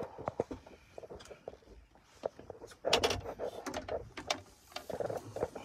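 A halibut splashing at the surface beside a boat as it is hauled up and grabbed by hand, with irregular knocks and splashes, busiest about three seconds in.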